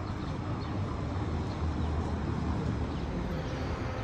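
Steady outdoor city ambience with a low rumble.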